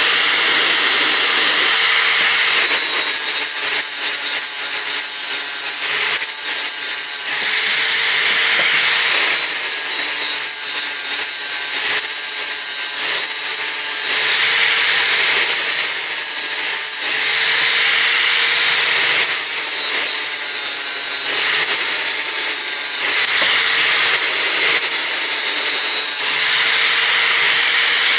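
Handheld power grinding tool stripping paint off a steel pipe post: the motor runs steadily while the abrasive grinding noise swells and eases every second or two as it is worked over the metal.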